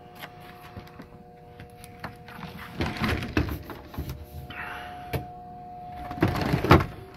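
Handling noise: knocks and rustling scrapes, loudest in two stretches about three and six seconds in, over a faint steady hum.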